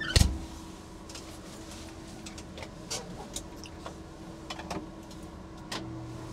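Timber truck's hydraulic loader crane running with a steady hum, heard from inside the crane cab, with a low thump just after the start and scattered light clicks and knocks.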